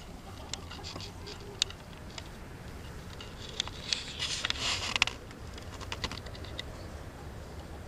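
Scattered light taps and clicks, with a brief rustling burst about four seconds in.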